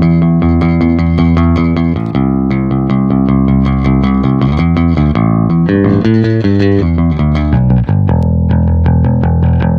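Yamaha ERB 300 II electric bass with PJ pickups played solo, a run of plucked notes and held notes with changing pitch.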